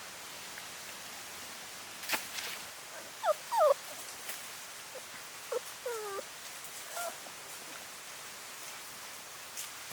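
Puppies whimpering: a few short, high, wavering whines, the loudest pair about three and a half seconds in, then more around six and seven seconds. A sharp click or knock sounds about two seconds in.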